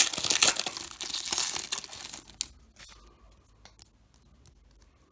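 Foil baseball card pack being torn open and crinkled, then going quiet after about two and a half seconds, with a few faint clicks after that.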